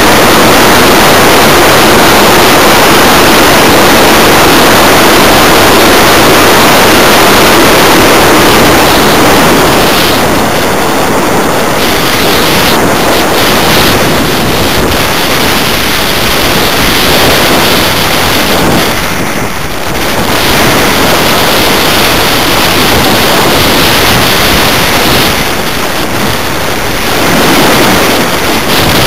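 Loud rushing wind noise on the microphone of a camera riding aboard a 1/6-scale BAC IV model glider in flight, with no motor heard. The airflow eases briefly a few times.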